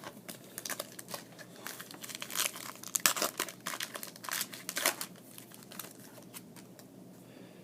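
Baseball card pack wrapper crinkling and cards being handled and slid against each other: a quick run of sharp crackles and clicks, thinning out to quieter rustling after about five seconds.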